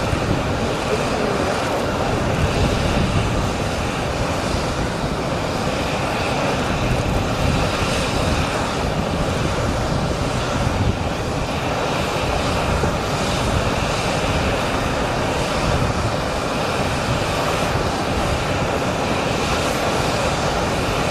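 Jet aircraft engines running on the apron: a steady, even noise with a faint high whine.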